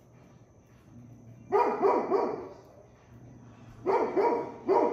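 Great Pyrenees guard dogs barking in short runs: about three barks in quick succession a second and a half in, then more barks near the end. Warning barks, the dogs chasing off a disturbance from the balcony.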